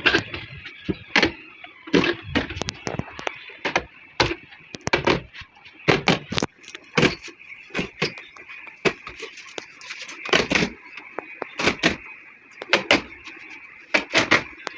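Irregular series of sharp knocks and clicks from hand tool work on a sofa, about one or two a second, over a faint steady high hum.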